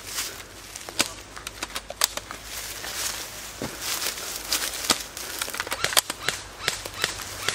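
Footsteps through dry leaves and brush: steady rustling with irregular sharp snaps and clicks.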